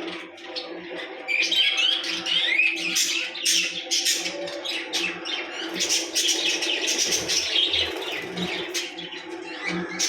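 A large colony of lovebirds chattering, many shrill chirps overlapping without a break, over a low steady hum.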